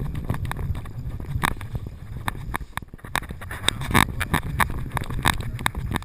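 Wind rumbling on the camera microphone, with scattered sharp knocks and taps from handling on a small fishing boat while a hooked fish is being fought.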